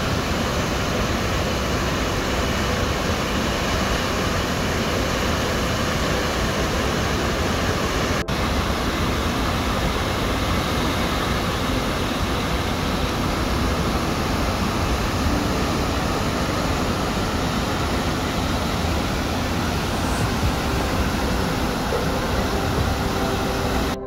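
Falls of Falloch waterfall: a loud, steady rush of falling water, with one very short break about eight seconds in.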